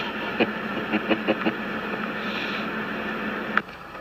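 A kitten crunching a cheese puff: a few sharp crunches about a second in, over a steady background hiss that drops away suddenly after a click near the end.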